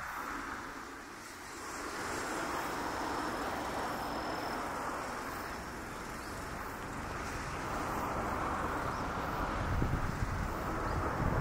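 Outdoor wind on the microphone: a steady rush of noise that gusts louder, with a low buffeting rumble, near the end.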